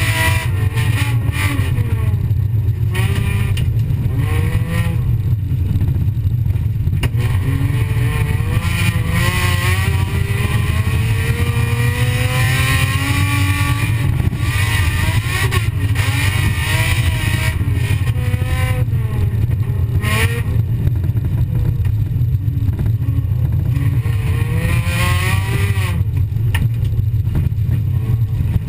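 Folkrace car's engine heard from inside the car, revving up and falling away again and again as it is driven hard on a dirt track, over a constant heavy low rumble.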